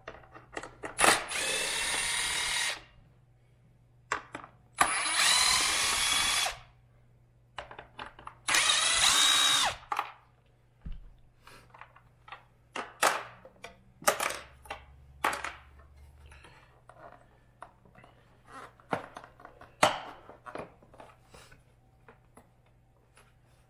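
Power drill fitted with a T30 Torx bit, run in three short spins as it backs Torx screws out of a plastic Jeep JL fender. Scattered light clicks and knocks from handling the screws and plastic parts follow.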